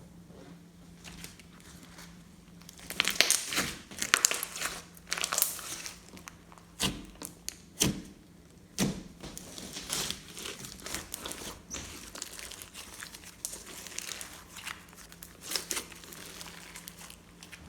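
Hands squishing, folding and stretching slime: wet crackling with a few sharp pops, the loudest bunched a few seconds in.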